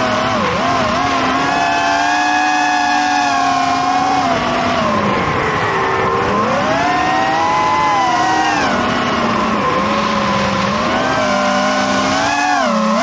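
FPV quadcopter's brushless motors and propellers whining, the pitch rising and falling with the throttle: it dips about five seconds in, climbs again, and dips sharply near the end before rising. A steady higher tone runs underneath.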